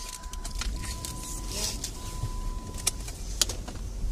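Low rumble of a car's cabin while riding, with a thin steady high tone that stops about three seconds in and a couple of sharp clicks near the end.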